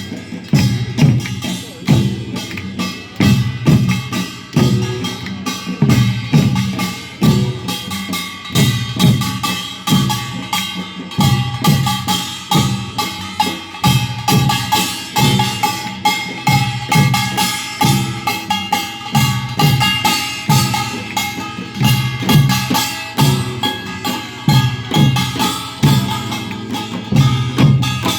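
Korean folk percussion music: drums struck in a steady beat, with sustained higher melodic tones above.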